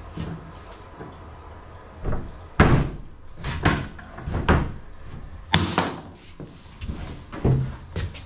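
A run of hard knocks and clunks, about eight at uneven spacing, the loudest about two and a half seconds in, from hands working in the open pipe duct behind a washroom's removable toilet boxing panel.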